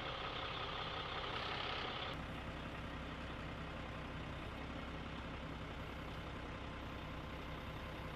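Military truck's diesel engine idling steadily while its loader crane works, a constant hum that changes tone slightly about two seconds in.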